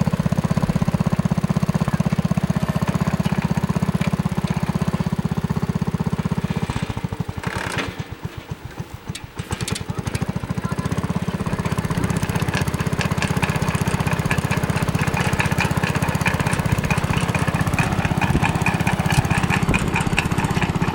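Small engine of a mini tractor running steadily. Near the middle it drops back for about two seconds, then picks up again.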